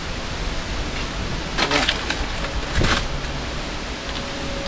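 Steady rushing noise of wind on the microphone, with two brief rustles about one and a half and three seconds in.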